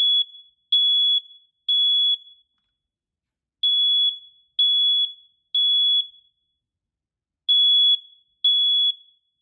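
BRK 4120B smoke alarm sounding on test: loud, high-pitched beeps of about half a second each in the three-beep temporal evacuation pattern. Two full groups of three are followed by two more beeps before it stops.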